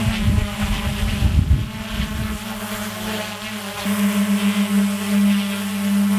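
DJI Mavic Air 2 drone's motors and propellers humming in flight, a steady buzzing tone with overtones. Wind buffets the microphone for the first couple of seconds, and the hum gets louder about four seconds in.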